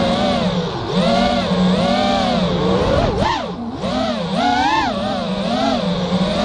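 Racing quadcopter's brushless motors (EMAX RedBottom 2300kv) spinning 5-inch tri-blade props, whining and swooping up and down in pitch as the throttle changes. There is a short dip about three seconds in.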